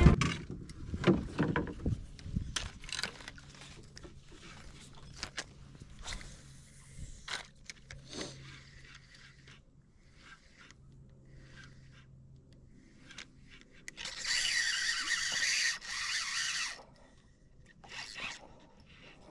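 A fishing rod and spinning reel handled on a skiff's deck make scattered scrapes and knocks. Past the middle, the reel whirs loudly for about three seconds.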